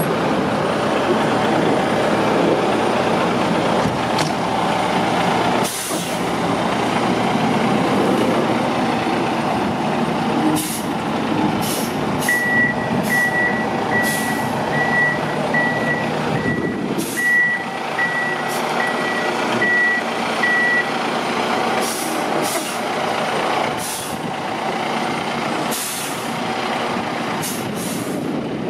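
Diesel engine of a KME Severe Service Predator fire engine running as the rig moves off, with short hisses of air from its brakes throughout. In the middle a reversing alarm beeps about eleven times, a little more than once a second.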